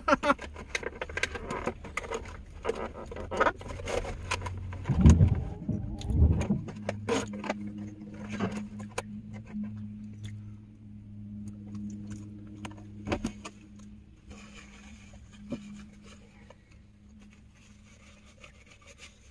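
Small clinks, rattles and scrapes of things being handled inside a van while food is eaten, busiest in the first half. A low steady hum joins about a third of the way in and stops a few seconds before the end.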